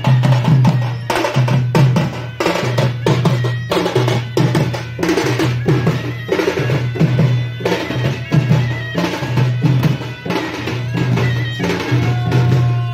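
Several double-headed drums beaten together in a fast, steady, repeating rhythm, procession drumming with a strong low boom under the strokes.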